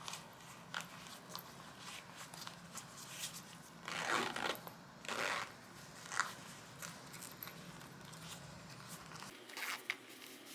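Fabric running belt being handled at the waist: small clicks and rustles of fabric and its zip pockets, with two louder zip pulls about four and five seconds in.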